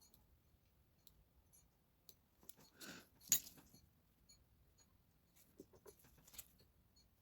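Faint, scattered clicks and small handling noises, with a sharper click about three seconds in.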